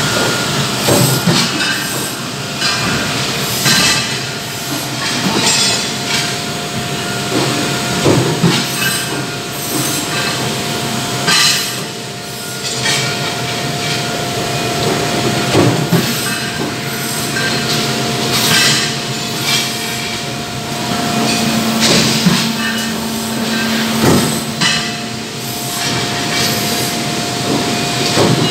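Steady, loud machinery noise around an Amada NCLH8 coil feeder, with a held tone and irregular knocks and clatter every second or two.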